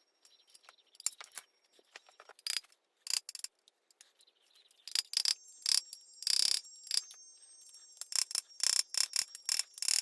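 Metal hand tools on an engine block: a socket ratchet clicking and tools clinking as bolts are tightened to torque, in irregular clicks that grow busier after about five seconds, with a short ratcheting rasp a little past six seconds.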